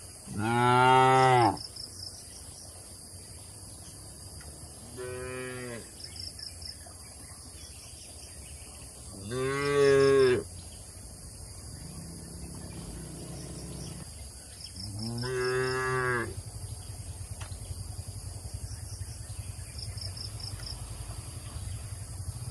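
Cattle mooing four times, each a drawn-out low call of about one to one and a half seconds: loud ones near the start and about ten seconds in, a fainter one about five seconds in, and another about fifteen seconds in.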